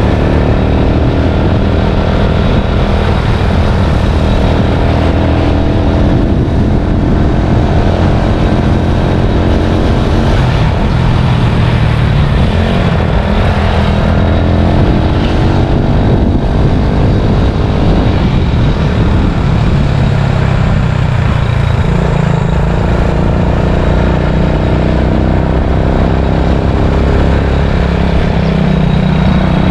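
A vehicle engine running under way, its pitch rising and falling several times as the throttle changes, over a steady low rumble.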